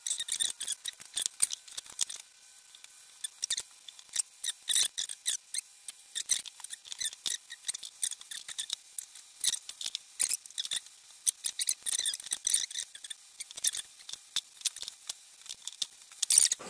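Woven glass-fibre cloth and plastic sheeting being handled and cut with scissors: a dense, irregular run of crisp crinkles and snips, with a quieter stretch about two to three seconds in.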